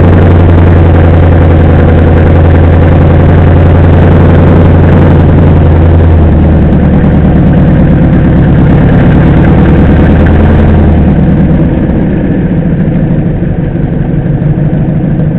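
Mercedes G-wagen's engine running at low speed as the vehicle creeps along, heard loud and close from beneath the chassis. The engine note eases off about eleven seconds in.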